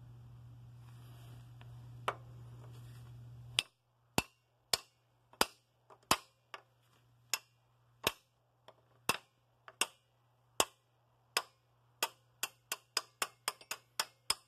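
A series of sharp metallic taps or knocks, about one a second at first and coming faster near the end, over a faint steady hum that drops away about three and a half seconds in.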